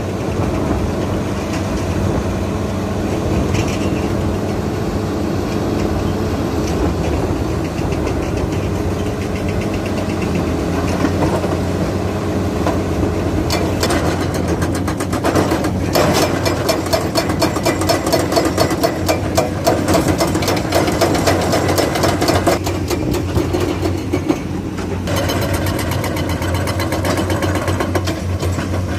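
Hydraulic excavator's diesel engine running steadily under load, with a dense rattling and clattering that sets in about halfway through.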